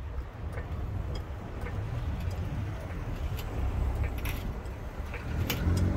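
Trolley jack being pumped by its long handle under a car, giving scattered metallic clicks and ticks over a steady low rumble.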